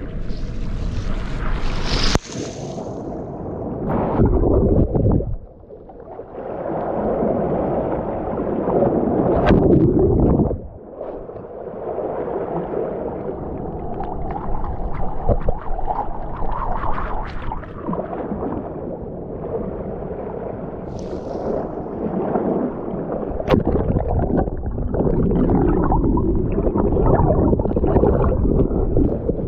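Sea water surging and sloshing over a mussel-covered shoreline rock in repeated swells, heard as a muffled, gurgling rumble, most muffled near the end as the camera dips underwater. A couple of sharp knocks stand out, one about two seconds in and one a little after two-thirds of the way through.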